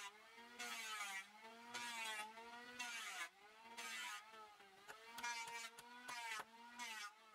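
A small motor running in short spells, its pitch dipping and rising again during each spell, with brief pauses between.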